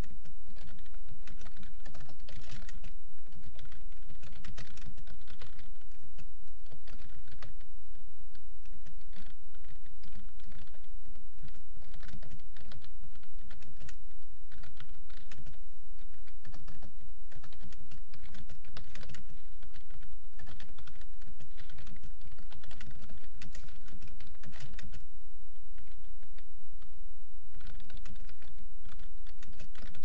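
Fast touch-typing on a computer keyboard: a quick, continuous stream of key clicks with a short break late on, over a steady low hum.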